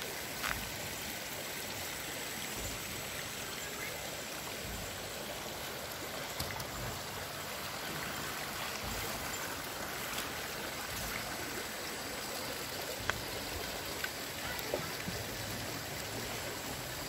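Spring water pouring from a spout in a stone wall and splashing into a shallow pool: a steady rush of running water, with a few small taps now and then.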